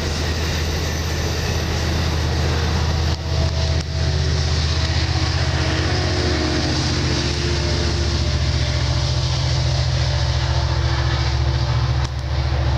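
A motor vehicle's engine droning steadily close by: a loud, low rumble with a wide noise over it that does not let up.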